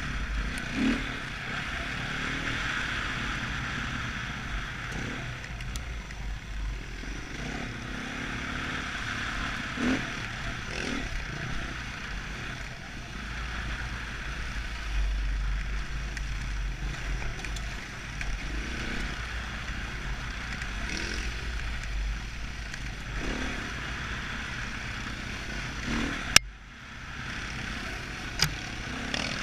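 Dirt bike engine running as the bike is ridden along a bumpy dirt trail, heard from a helmet camera with wind rumble on the microphone and clatter as the bike goes over bumps. A sharp knock near the end, after which the sound briefly drops.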